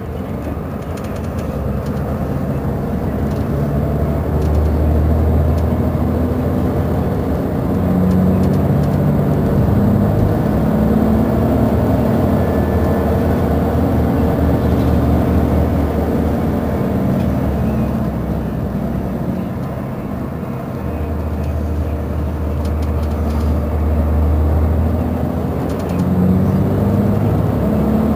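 Mercedes-Benz Intouro bus's diesel engine running under load, its note shifting in steps and swelling twice, with a dip in between.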